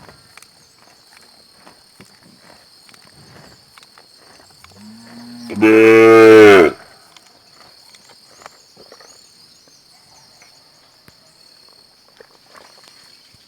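A calf moos once, about halfway through. The call starts low and breaks into a louder, higher bawl that lasts about a second. Before and after it come faint, irregular soft clicks of a cow chewing its cud, over a steady high-pitched hum.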